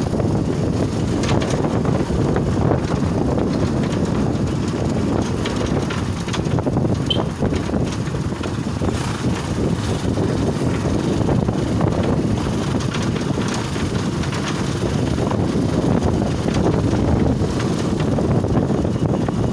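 Motorcycle engine running steadily while riding along, with wind buffeting the microphone.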